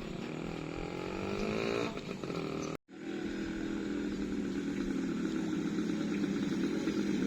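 A small engine running, its pitch rising over the first two seconds. The sound drops out sharply just under three seconds in, and the engine then runs on steadily.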